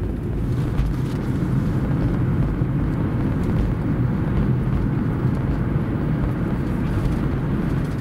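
Steady road and engine noise from a moving car, heard inside the cabin.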